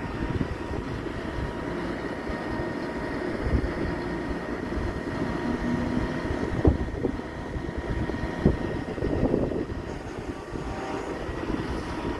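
A mobile crane's engine running steadily, with wind rumbling on the microphone. Two sharp knocks come in the middle, a couple of seconds apart.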